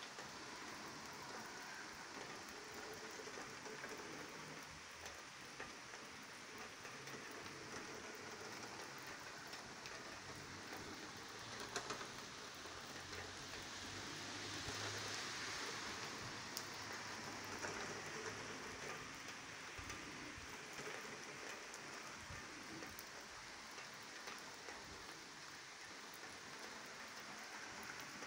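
Steady rain falling on wet pavement, growing a little louder in the middle, with a faint low hum underneath for several seconds mid-way.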